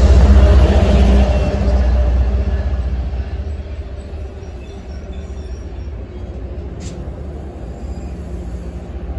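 Commuter train arriving: a diesel locomotive's low engine rumble is loud at first and fades over the first few seconds as it moves on. After that comes the steady rolling of the bilevel passenger coaches passing slowly along the platform, with a single short click about seven seconds in.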